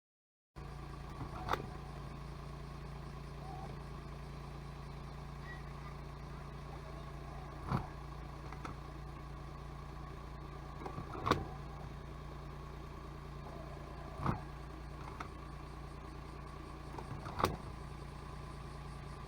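Steady engine and road drone inside a smart fortwo (451) cabin, starting about half a second in, with five short, sharp knocks a few seconds apart.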